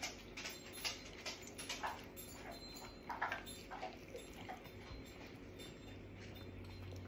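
Soft, scattered smacking and clicking of eating: lips and chewing while fingers pull meat off a boiled soup bone.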